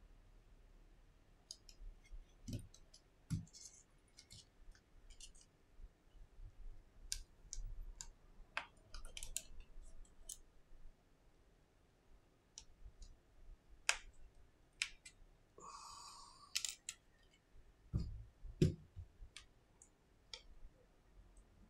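Scattered small clicks and taps of a precision screwdriver and small metal parts being handled on an opened iPhone 7, with a short rasp about two-thirds of the way through.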